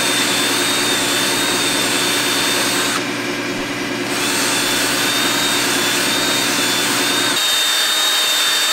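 Cordless drill running steadily, spinning a 12-gauge shotgun bore brush that scrubs rust out of a passage in a Caterpillar 1693 engine block. A steady motor whine continues throughout, with a brief dip about three seconds in.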